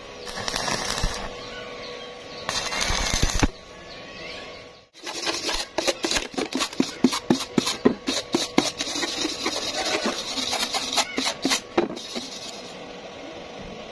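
Stick-welding arc crackling in two short bursts, about a second each, as tack welds are laid on thin galvanized square tube. A few seconds later a steel wire brush scrubs the fresh welds and steel plate in quick strokes, about four a second, clearing off the slag.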